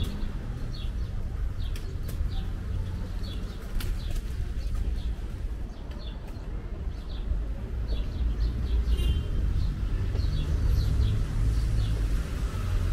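Small birds chirping, short high chirps a couple of times a second, over a low steady rumble of street traffic.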